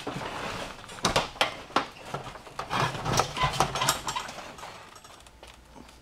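Garage door panel and its metal hinge hardware being worked loose: a few sharp metal knocks in the first two seconds, then scraping and handling noise that dies away near the end as the panel slides free of the bracket.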